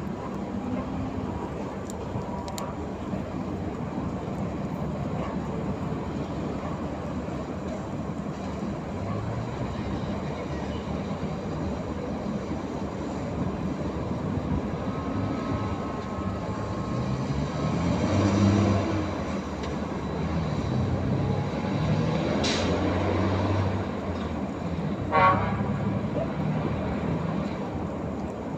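Steady low rumble of a berthing container ship's machinery alongside the quay. It swells a little in the middle and end. A short sharp high sound comes near the end, and a brief louder pitched blip follows a few seconds later.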